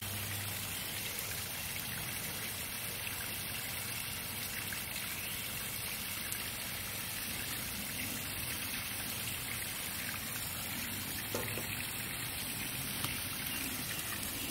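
Steady, even hiss like rain or running water, with no distinct events apart from two faint ticks.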